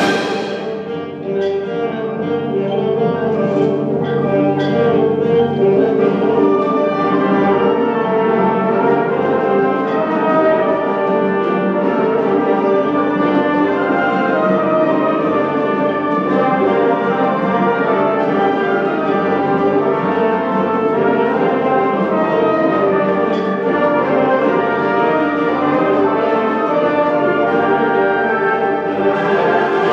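High school symphonic band (concert band of woodwinds, brass and percussion) playing a concert piece, with the brass prominent in sustained full-band chords. A bright crash sounds right at the start and again near the end.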